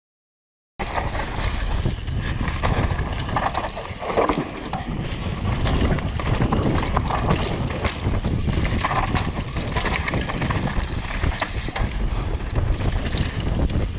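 Wind buffeting the camera microphone over the rattle and rumble of a downhill mountain bike running fast on a rough trail, starting abruptly just under a second in.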